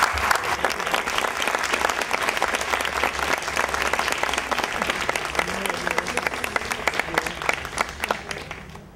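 Audience and panel applauding after a speech, the clapping thinning out and fading near the end.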